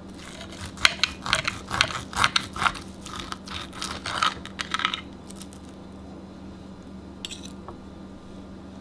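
Serrated steak knife sawing through a seared steak, the blade scraping and clicking against the plate in quick strokes for about five seconds, then stopping. One more short scrape comes about seven seconds in.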